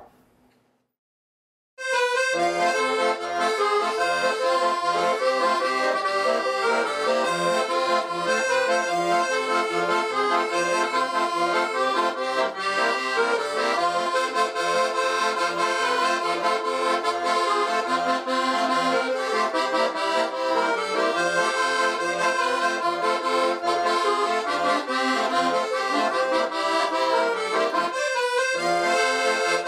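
Near silence, then instrumental music with a steady beat starts about two seconds in and plays on, breaking off briefly near the end.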